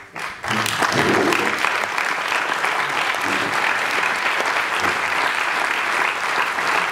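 Audience applauding, starting suddenly about half a second in and then holding steady.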